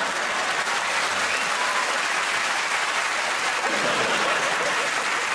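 Studio audience applauding: steady, dense clapping.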